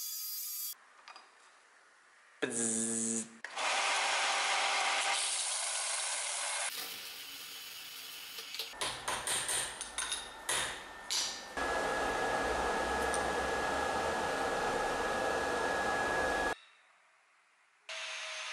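Angle grinder cutting steel in several separate runs, its disc whining steadily in the longest one. Partway through comes a quick run of about seven hammer blows on steel clamped in a bench vise.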